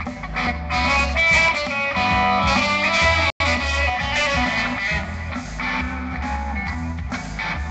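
Live band music led by guitar, with deep bass notes underneath. The sound cuts out completely for an instant about three and a half seconds in.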